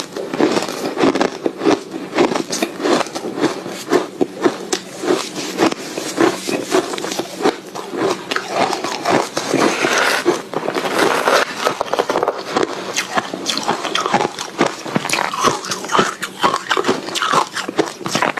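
Soft ice being bitten and chewed, a dense, continuous run of crisp crunches and crackles.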